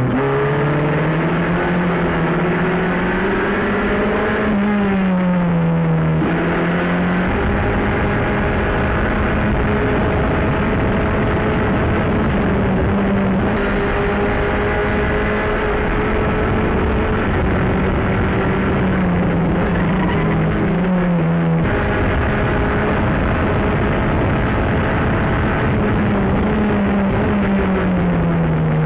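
Formula F race car's four-cylinder engine heard from the cockpit, running hard: the pitch climbs under acceleration, drops as the car slows for corners, and holds high on the straight, with steady wind and road hiss over it.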